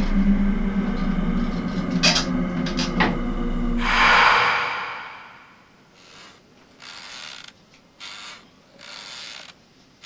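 A loud low drone with a few clicks swells about four seconds in and fades away. It is followed by a fainter rhythmic scraping or creaking, about once a second, each stroke lasting about half a second.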